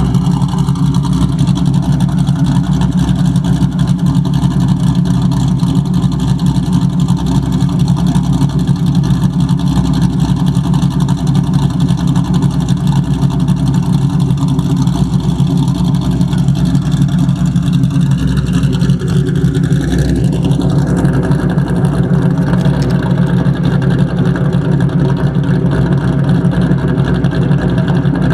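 A modified 1999 Ford Mustang GT's 4.6-litre V8, with aftermarket cams, longtube headers and a loud catback exhaust, running steadily at an even speed. It is being run to show a tapping noise from the engine whose cause the owner cannot find.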